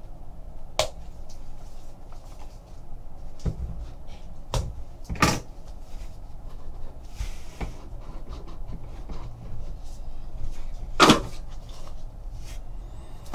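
Small cardboard trading-card box being slit open by hand and its lid worked off: a few sharp clicks and knocks of the box and cutting tool, the loudest about five seconds in and another near the end, with a soft scraping rustle in between.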